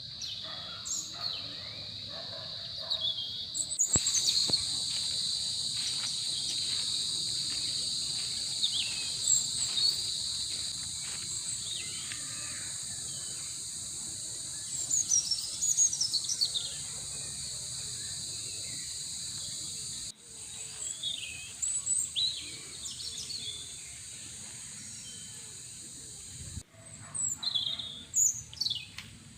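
Crickets chirping in a steady, high-pitched chorus, with short bird chirps over it again and again. The chorus changes abruptly a few times.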